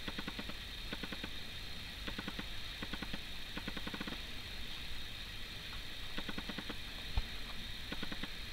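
Plastic ball rattling around a circular cat track toy in short bursts of rapid clicks as kittens bat it, with a soft thump a little after seven seconds.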